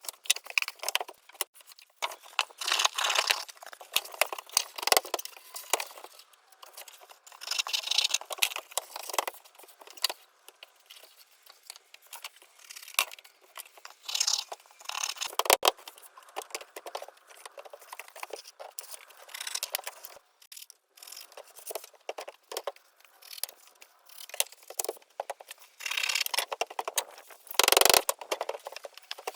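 Irregular knocks, scrapes and rattles of hand work on wooden flooring boards and small hardware for a door, in short clattering bursts with a louder knock about 15 seconds in and again near the end.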